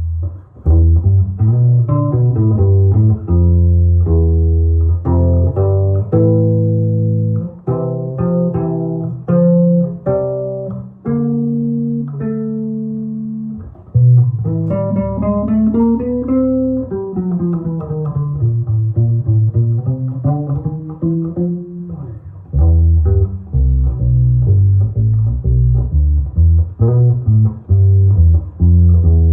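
1962 Höfner 182 E-1 electric bass strung with flatwound strings, played as a bass line of single plucked notes. It starts low, moves to higher notes, runs up and back down through the middle, and returns to low notes near the end.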